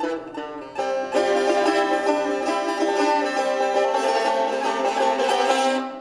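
Instrumental music of plucked strings playing a quick, dense run of notes, stopping abruptly at the end.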